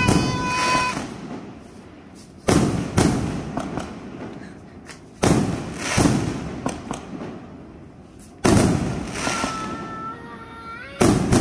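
Fireworks going off in a string of loud booms, one about every three seconds. Each boom fades out with a rumble and scattered crackle.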